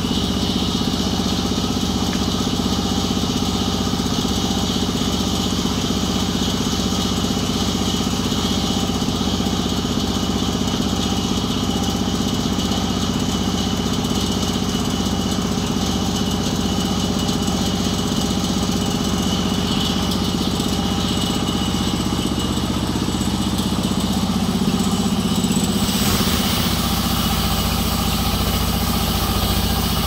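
Sawmill band saw running steadily as it cuts through a jackfruit log: a continuous machine drone with a regular low pulse and the hiss of the blade in the wood. The sound shifts about 26 s in, the low drone changing and the hiss growing brighter.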